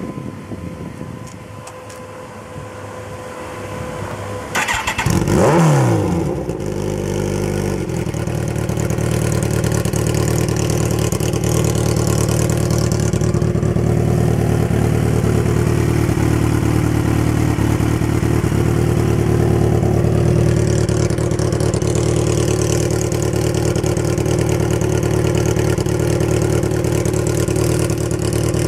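Kawasaki ZX14R's inline-four engine starting through an Extremeblaster XBST slip-on dual exhaust, right pipe with its baffle removed and left pipe slash-capped over seven disks. About five seconds in it catches, with a brief rising rev. It then settles into a steady idle.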